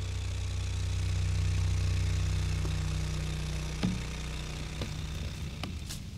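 An engine running steadily with a low hum that grows louder and then slowly fades, with a few faint knocks in the second half.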